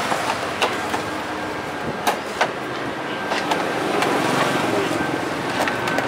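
Honda Wave 125i's plastic front cowl being pressed back into place by hand: several sharp plastic clicks and knocks spread out over a steady background noise.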